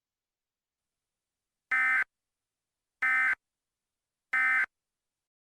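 Emergency Alert System end-of-message signal: three short bursts of SAME digital data tones, evenly spaced about a second and a quarter apart.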